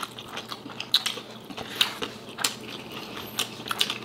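Close-miked chewing of crispy fried dried fish and rice, with sharp crunches and mouth clicks now and then.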